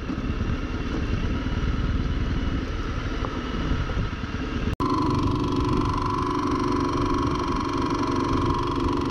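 Honda CRF250 Rally's single-cylinder engine running steadily as the bike rolls slowly down a gravel track, heard from the bike's own camera with wind noise. The sound cuts out for an instant about halfway through.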